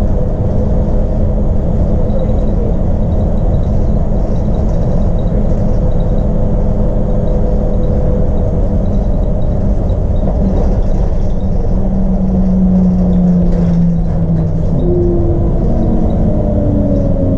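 Interior of a Scania L94IB bus under way: its 9-litre six-cylinder Scania DC902 diesel running steadily with road rumble from the tyres. Over the last few seconds the engine note shifts in pitch several times.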